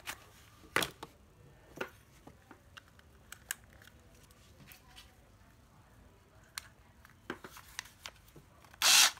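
Scattered clicks and knocks from a Nati 12V cordless drill being handled, then near the end its motor starts running briefly as it is test-run.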